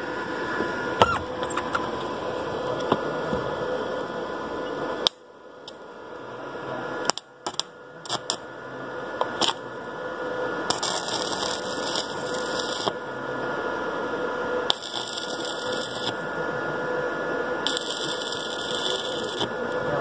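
Electric arc welding on sheet metal: a steady crackle with a hum under it. The arc breaks off about five seconds in, then strikes again and runs on, with a few brighter hissing stretches.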